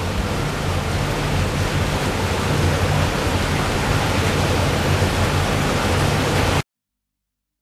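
Steady rush of water with a low machine hum from the aquarium's water-filtration system, growing slightly louder; it cuts off suddenly near the end.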